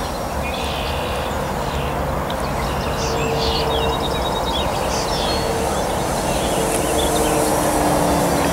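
Electric RC plane's brushless motor and 15x7 propeller droning overhead in flight, a steady hum that grows slightly louder as the plane comes nearer. Birds chirp now and then.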